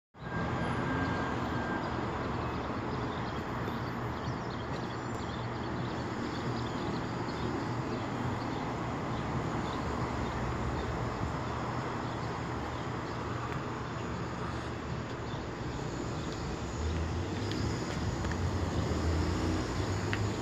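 Steady outdoor background noise, a continuous rumble and hiss with no distinct events, the low rumble swelling a little near the end.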